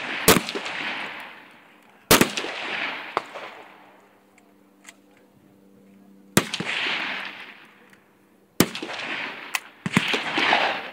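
Scoped AR-style semi-automatic rifle fired from a bipod: five loud shots one and a half to four seconds apart, each followed by an echo rolling back off the range that fades over a second or more.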